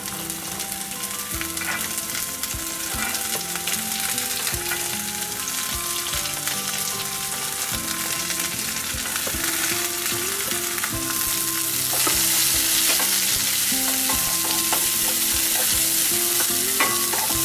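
Diced carrots and green beans sizzling in hot oil in a kadai, with clicks and scrapes of a spatula and plate as they are added and stirred. The sizzle grows louder about two-thirds of the way in.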